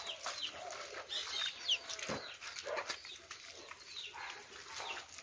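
Chickens clucking and small birds chirping in short, downward-sliding calls, with a single dull thud about two seconds in.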